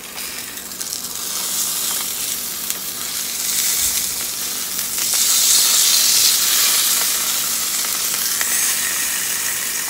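Salmon sizzling on a hot grill plate: a steady frying hiss that builds and is loudest around the middle, with a few light taps of a wooden spatula.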